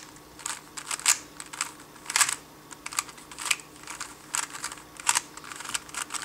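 3x3 speedcube's plastic layers being turned by hand: a string of sharp, irregular clicks and clacks, a few a second, as a PLL algorithm is executed.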